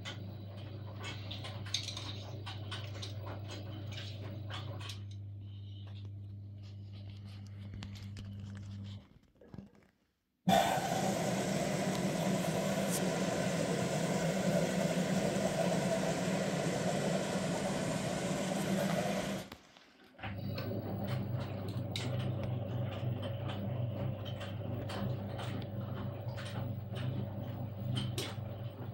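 LG F1403TDS6 direct-drive front-loading washing machine running early in a short cotton cycle: a steady hum with light ticks and knocks. In the middle a much louder rushing noise starts abruptly, lasts about nine seconds and stops just as suddenly, before the hum returns.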